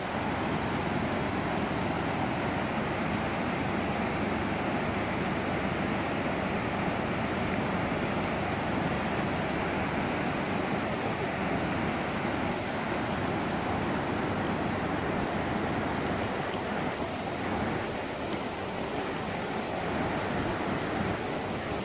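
River in flood, fast-moving muddy floodwater rushing through the trees as a steady, even rush of water.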